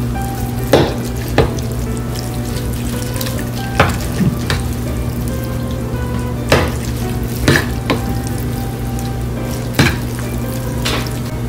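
A metal fork stirring and tossing sauced instant noodles in a bowl: wet, squishing noodle sounds with the fork clinking sharply against the bowl about nine times at irregular intervals. A steady low hum sits underneath.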